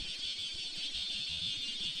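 Steady high-pitched whine of a 70mm electric ducted fan on an RC jet in flight, holding an even pitch, with wind rumbling on the microphone.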